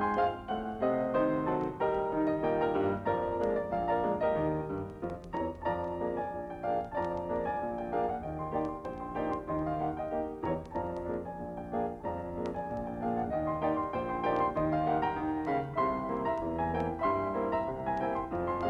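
Piano music playing without a break, a continuous run of notes.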